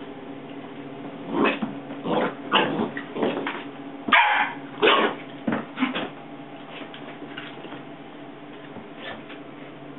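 Dogs at play: a quick run of about eight short barks and yips between one and six seconds in, then one faint yip near the end.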